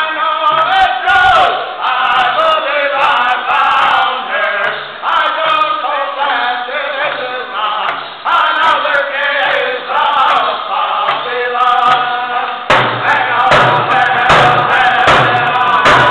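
Group of men singing a powwow hand drum song in unison, high chanted vocals over frame hand drums struck with beaters. The drumming is light and sparse at first, then steady, strong beats of about two a second come in about three-quarters of the way through.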